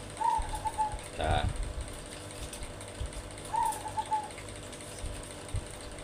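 A zebra dove (perkutut) cooing twice, about three seconds apart. Each call is a rising note and then a quick run of short, even notes. A brief louder sound follows the first call, and a few light knocks come from hands at the wire cage.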